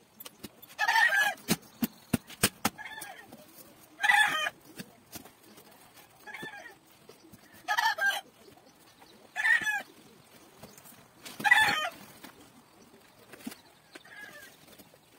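Chickens clucking in short, repeated calls every second or two, with scattered clicks and rustles of a cardboard box and plastic wrapping being handled.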